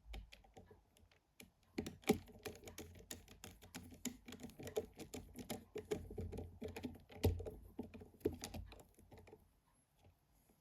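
Rapid, irregular light clicking and ticking, like typing, as small screws are driven into a Nokia N73 phone's housing with a precision screwdriver. There are louder clicks about two seconds in and again about seven seconds in.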